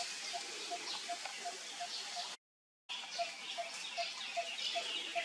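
Outdoor tree-canopy ambience: a bird repeating a short, low, hollow note about two or three times a second, over a high, steady insect hiss. The sound drops out completely for about half a second midway.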